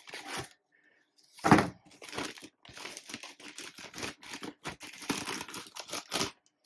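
Packaging crinkling and rustling in irregular strokes as a boxed jigsaw is unwrapped by hand, with one louder dull thump about a second and a half in.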